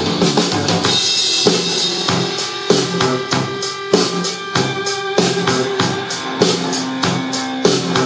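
Music with a steady drum-kit beat and a bass line, played through a JBL Flip 2 portable Bluetooth speaker.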